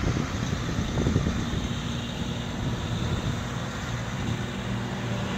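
John Deere 6620 combine's diesel engine running steadily, with a steady low hum, and a few low knocks in the first second.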